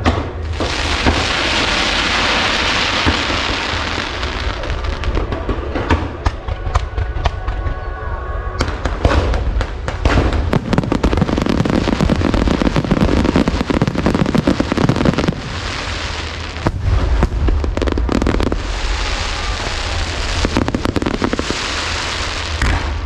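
Aerial fireworks display: a continuous barrage of shell bursts, with many sharp bangs and crackles over a low rumble.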